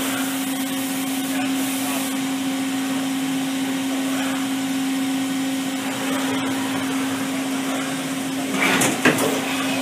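Makino A77 horizontal machining center running with a steady hum and whine. About nine seconds in come a few sharp metallic clunks and a rattle, typical of the automatic tool changer swapping the tool in the spindle.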